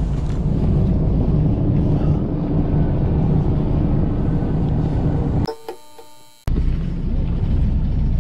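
Steady low rumble of wind on the microphone and a boat's engine aboard a fishing boat at sea. It drops to a thinner, quieter sound for about a second just past halfway, then returns.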